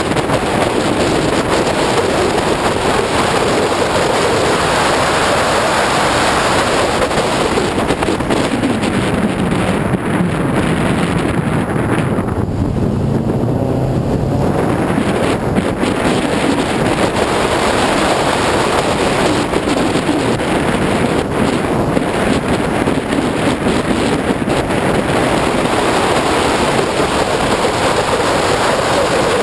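Subaru Forester 2.5XT's turbocharged 2.5-litre flat-four under load on a circuit lap, with heavy wind noise on the microphone. Around halfway the engine pitch falls and the wind hiss eases as the car slows for a tight bend, then the pitch climbs again as it accelerates away; near the end it drops once more.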